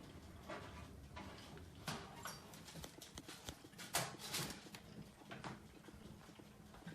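Faint, irregular knocks and clicks of an aluminum laptop stand and other things being handled and set down on a desk, the loudest about four seconds in.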